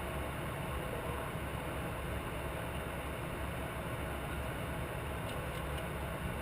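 Steady drone of an aircraft's engine and airflow, even in level throughout.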